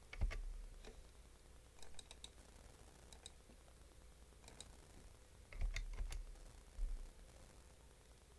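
Faint computer keyboard keystrokes and clicks in short scattered groups, with a few dull low thumps, the loudest about six seconds in.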